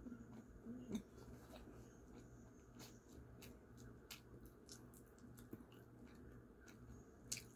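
Near silence: a low steady room hum with scattered faint clicks, and a louder click about a second in and another near the end.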